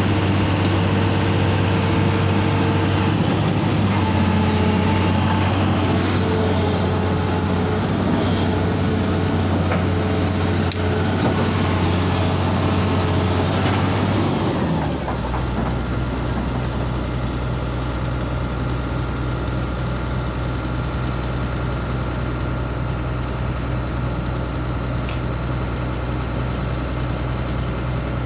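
Heavy diesel engine of machinery running close by with a steady loud hum. About halfway through, its note shifts lower and the sound becomes a little quieter and steadier.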